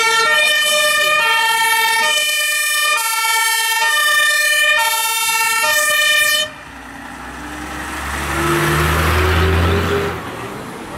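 German two-tone fire engine siren (Martinshorn) alternating high and low on an MAN LF 16/12 fire engine. It cuts off suddenly about six and a half seconds in. The truck's diesel engine is then heard pulling up, rising in pitch and growing louder as it passes close by.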